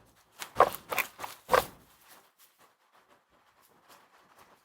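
A handful of short knocks and clicks from handling the blower motor fan and oil bottle, clustered in the first two seconds, then a few faint ticks.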